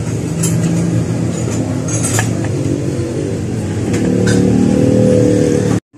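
Small motorcycle engine running steadily, its note rising a little about four seconds in, with a few light clicks over it. The sound cuts off suddenly just before the end.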